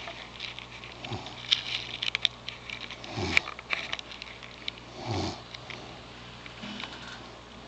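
Snoring in a short, quick rhythm, four snores about two seconds apart, with faint clicking noises between them.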